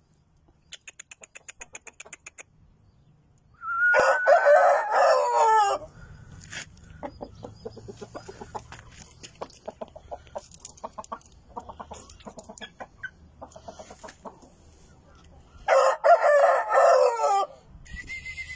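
Shamo rooster crowing twice, about twelve seconds apart. Each crow lasts about two seconds and falls in pitch at its end. Short scattered clicks come between the crows.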